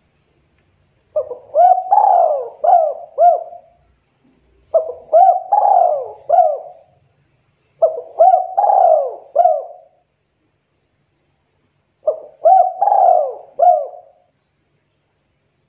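Spotted dove cooing: four phrases a few seconds apart, each a quick run of several arching notes that rise and fall.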